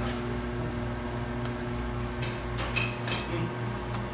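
A steady low machine hum, with a few short clinks and knocks of metal utensils between about two and three seconds in.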